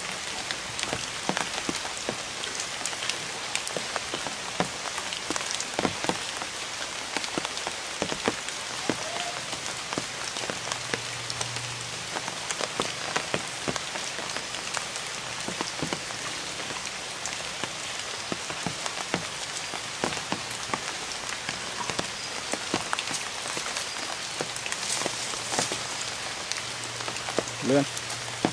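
Steady pattering and splashing of water on the surface of a pond, a dense patter with many small sharp ticks and splashes.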